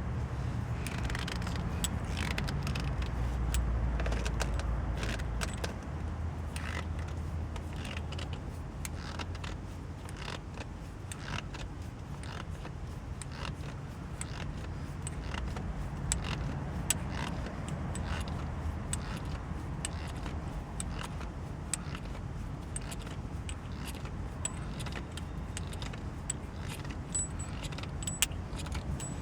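Momo shift knob being turned by hand down the threaded shift lever, making scattered light clicks and ticks over a low steady rumble.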